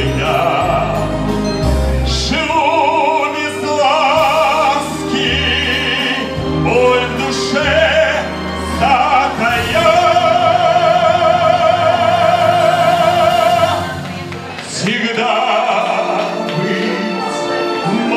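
A man singing in operatic style into a microphone over a recorded backing track, his voice carrying a wide vibrato. About ten seconds in he holds one long high note for about four seconds.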